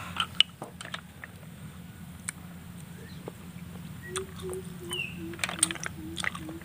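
Cooked snail shells clicking against one another and the plate as snails are picked up and their meat is pulled out with a toothpick, with a sharp click near the start. From about four seconds in, an animal calls in a run of short low notes, about four a second, and a bird chirps once.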